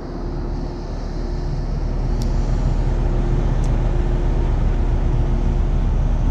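A steady low motor rumble with a faint steady hum over it, growing slowly louder, and two faint clicks a little past two and three and a half seconds in.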